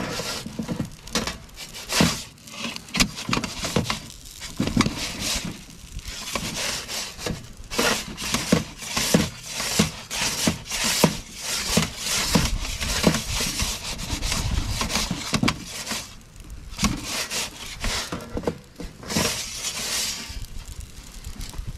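Metal pizza peels scraping and rubbing against the pizza stone and the oven mouth as the pizza is slid, turned and lifted: a long run of irregular short scrapes and knocks.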